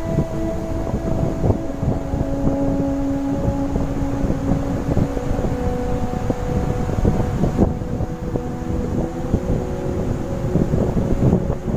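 Wind buffeting the microphone in gusts, with a few steady held tones running underneath.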